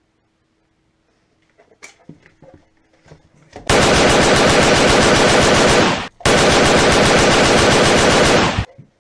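A few light knocks, then two long bursts of rapid automatic gunfire, each about two and a half seconds, with a short break between them.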